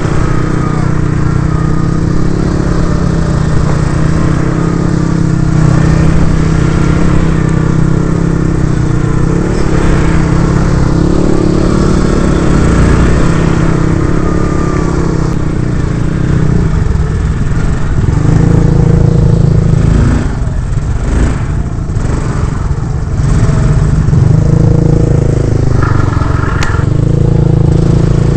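ATV engine running steadily under throttle on a rough dirt trail, easing off with some knocks and clatter about twenty seconds in, then pulling again.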